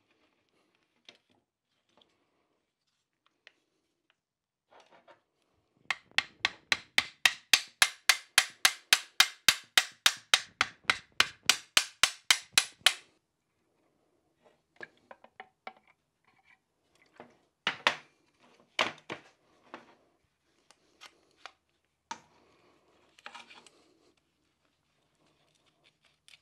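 Hand brush scrubbed fast back and forth over the metal pedal-box bracket, about five or six even strokes a second for around seven seconds. Scattered light clicks and knocks of metal pedal parts being handled follow.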